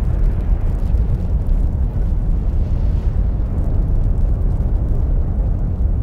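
A steady, loud low rumble with a fainter hiss above it, running without a break or rhythm.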